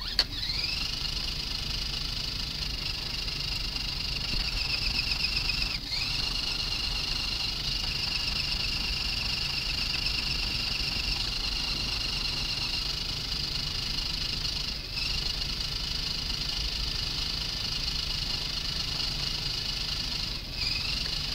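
Axial SCX10 Honcho RC crawler's electric motor and gear drivetrain whining steadily as the truck drives. The pitch dips and climbs back once about six seconds in and again near the end as the throttle eases off and picks up.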